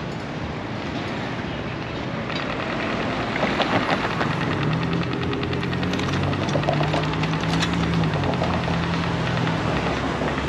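A motor engine running close by, with a fast rattle that starts about two seconds in and a low hum that rises and falls in pitch through the second half, over steady street noise.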